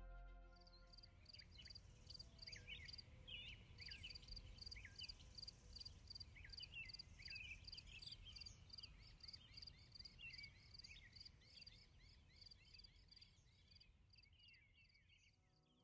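Faint field ambience: an insect chirping in an even pulse of about five a second, with birds calling in short rising-and-falling chirps. It fades away near the end.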